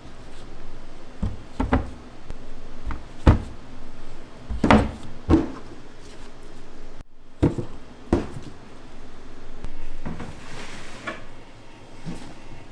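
Irregular knocks and thuds of hands-on kitchen work, with things being set down and handled, followed by a brief hiss near the end.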